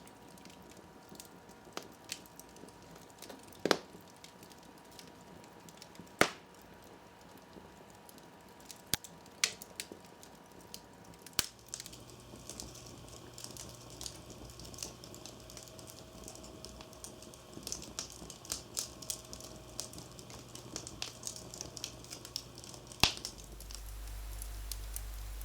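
Wood fire in a fireplace crackling, with sharp pops now and then. The crackling turns quicker and denser about halfway through.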